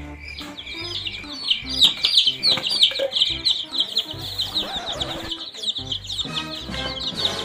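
A flock of young chicks peeping constantly, many short high chirps overlapping, over background music.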